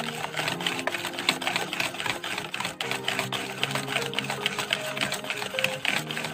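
Wire balloon whisk beating an egg and sugar batter in a mixing bowl: a fast, steady clatter of the wires against the bowl, with background music underneath.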